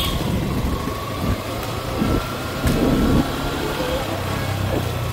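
Motorcycle engine running steadily at low road speed, with street and traffic noise around it; there is a short louder patch about three seconds in.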